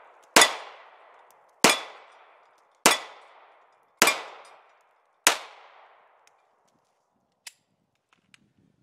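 Kahr CM9 9mm pistol fired five times at a steady pace, about one shot every 1.2 seconds, each shot followed by a short ringing tail. A faint click comes near the end.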